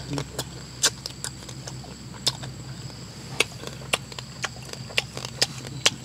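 A person chewing food with the mouth close to the microphone, a series of short wet smacks and clicks, sparse at first and then about two a second in the second half. A faint steady high hum runs underneath.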